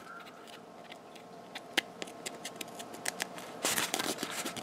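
Foam model-plane tail halves being handled and pushed together over a wire joiner rod: scattered small clicks and scrapes, with a denser scratchy rubbing near the end.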